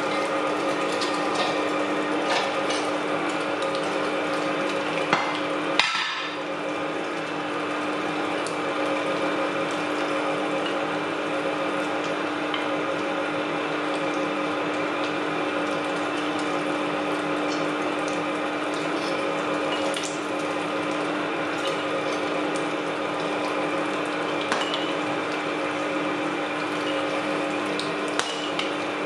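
Electric meat grinder running steadily with a constant motor hum, forcing meat through its cutting plate. There are a few short clicks and a brief dip about six seconds in.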